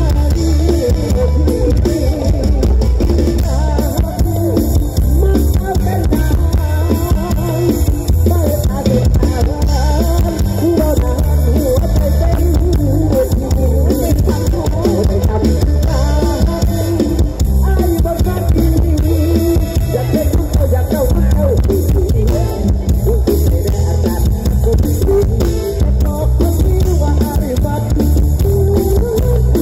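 Live band music from a concert PA: a drum kit and heavy bass under amplified melody and singing, with a booming low end.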